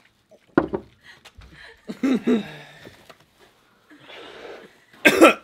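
Short pained vocal sounds from young men burning from a ghost pepper: a few brief groans and a breathy exhale, with the loudest groan near the end.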